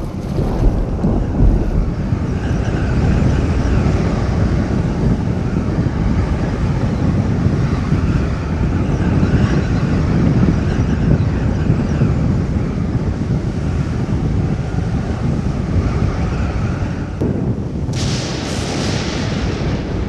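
Strong wind buffeting the microphone over choppy water, with waves splashing, a steady loud rumble throughout. About two seconds before the end a brighter hiss comes in briefly.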